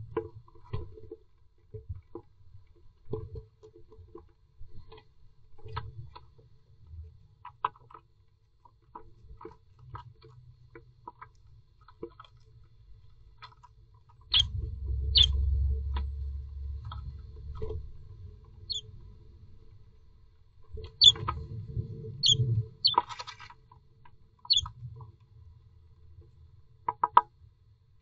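Blue tit moving about in a nest box, scratching and rustling in the nest material with many small clicks. Two louder bouts of rustling come in the middle and later on, with a few short high cheeps scattered among them.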